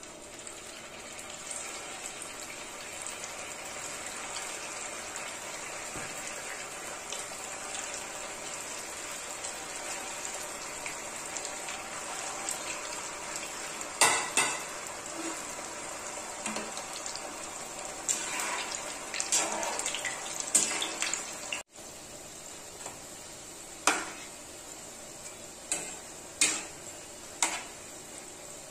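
Sooji litti balls deep-frying in hot oil in a kadai: a steady sizzle throughout. A metal spatula knocks and clinks against the pan about halfway through and several more times near the end.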